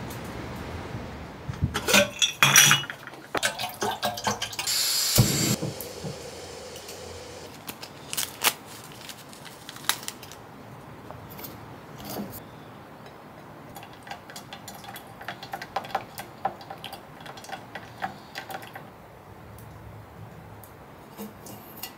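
Metal camp cookware being handled: clinks and clanks of a metal mug and kettle, busiest a couple of seconds in with a brief hiss about five seconds in, then scattered light clicks.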